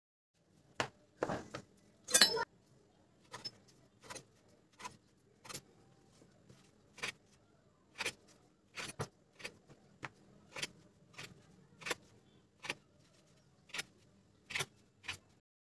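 Kitchen knife chopping down through slices of bread onto a bamboo cutting board while trimming off the crusts: a string of sharp taps, irregularly about one every half second to a second, the loudest about two seconds in.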